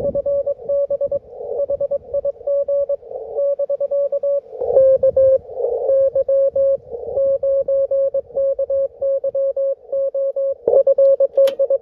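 Morse code (CW) on the 20-metre band from a Yaesu transceiver: a steady tone of about 600 Hz keyed in quick dots and dashes, over a narrow hiss of band noise. The tone shifts slightly in pitch about five seconds in and again near the end.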